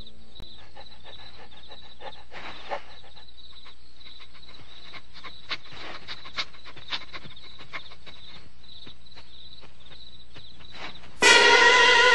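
Cartoon dog sniffing in short, scattered snuffles, over a faint high chirping that repeats evenly. About a second before the end, loud music cuts in.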